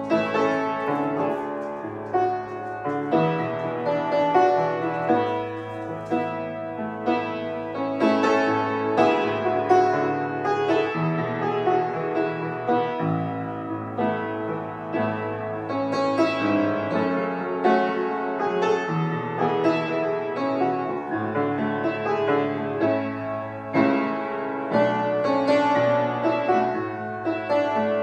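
Solo piano music played on an upright piano, a steady flow of notes over sustained chords.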